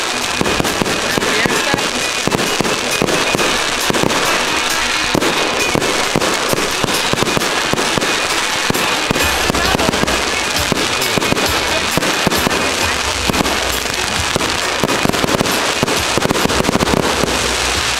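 A fireworks barrage: a rapid, unbroken string of shots launching from the ground and bursting overhead with crackle.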